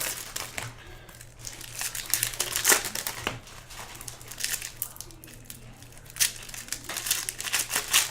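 Foil trading-card pack wrappers crinkling and rustling in quick irregular bursts as packs are handled and opened, over a faint steady low hum.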